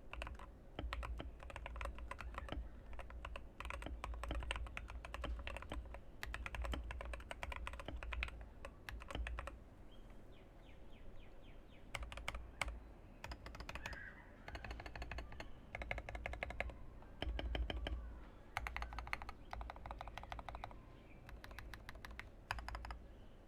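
Typing on a TM680 mechanical keyboard with factory-lubed, filmed Gateron Pro Yellow linear switches in a foam-filled, tape-modded case: runs of fast keystrokes in bursts with brief pauses.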